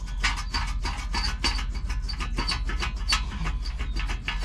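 New wheel hub bearing assembly being rocked and worked into the steering knuckle bore, metal scraping against metal in a quick, uneven series of rubbing strokes, several a second.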